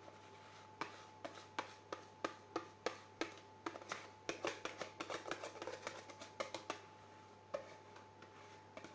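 Kitchen utensil tapping and scraping against a mixing bowl and cake tin while chiffon cake batter is transferred: a run of irregular light clicks and taps, busiest in the middle, over a faint steady hum.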